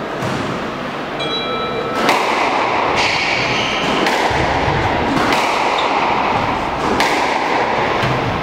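Squash ball being struck and hitting the court walls during a rally: sharp thwacks a second or two apart, starting about two seconds in. Short high squeaks come in between them, from shoes on the wooden court floor.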